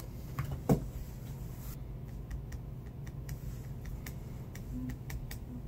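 Light clicks and taps of a smartphone and small repair tools being handled, with one louder click about a second in, over a steady low hum.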